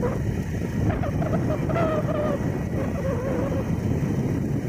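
Motorcycle riding noise: the engine and wind rumbling on the microphone. From about a second in to past the middle, a wavering pitched call is heard over it.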